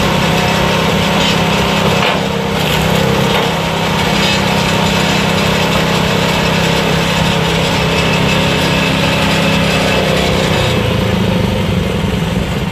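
The small gas engine of a DR K34 kinetic log splitter runs steadily while logs are split, with a log cracking apart about two seconds in.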